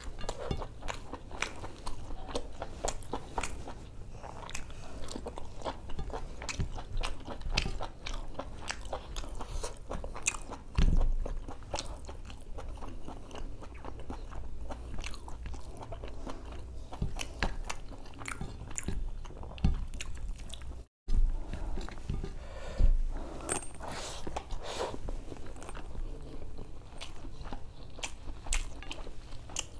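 Close-miked chewing and lip-smacking of a person eating spicy mutton intestine (boti) and khichdi by hand, a dense run of wet mouth clicks. There are two louder thumps, about eleven and twenty-three seconds in, and a brief cut to silence just before the second.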